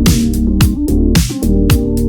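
Electronic intro music with a heavy, regular drum-machine beat and sustained synth notes.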